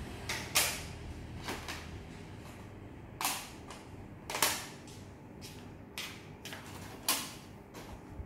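Plastic cassette tape cases clacking against each other as they are handled, stacked and put into a plastic storage box: irregular sharp clicks, the loudest about half a second, three, four and a half and seven seconds in.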